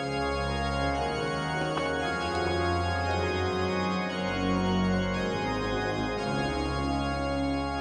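Organ music: slow, sustained chords over deep bass notes, with the bass shifting to a new note about four seconds in.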